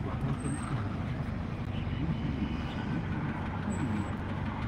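Steady low rumble of a car's engine and running noise heard from inside the cabin.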